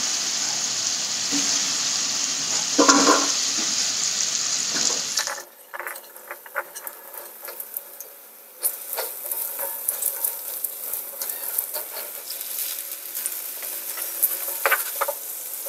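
Coated chickpeas frying in hot oil in a metal kadai: a loud, steady sizzle with a metal spatula stirring and scraping. About five seconds in it drops off suddenly to a few light clicks. From about nine seconds a fresh batch in the oil crackles and pops quietly, with occasional spatula scrapes.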